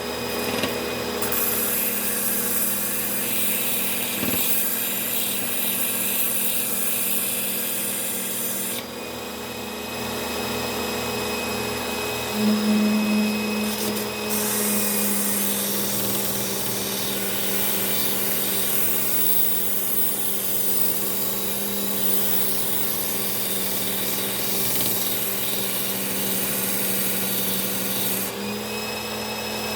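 Bench grinder running with a steady motor hum while a steel knife blade is pressed against its spinning buffing wheel. The blade adds a loud rubbing hiss for long stretches. The hiss drops away for a few seconds about nine seconds in, then resumes until shortly before the end.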